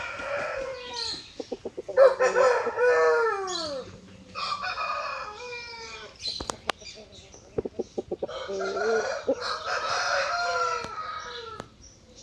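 Aseel rooster crowing three times, drawn-out crows starting about two, four and eight seconds in, the last the longest, with short quick clucks between them.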